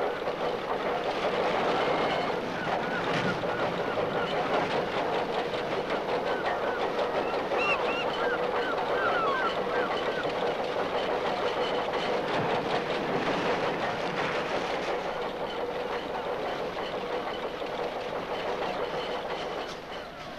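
Gulls calling again and again, short rising and falling cries, over a steady mechanical drone. The sound fades a little near the end.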